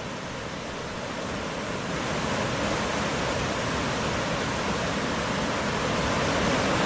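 Steady rushing noise with no distinct tones, growing slowly louder.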